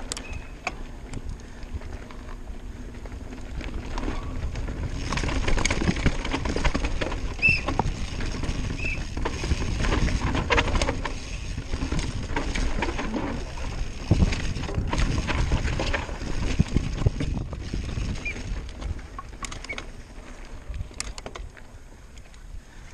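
Mountain bike ridden over grass, dirt and roots: tyres rolling with the bike rattling and knocking over bumps. The rattling is busiest and loudest in the middle, through a rough wooded stretch, and eases off near the end back on grass.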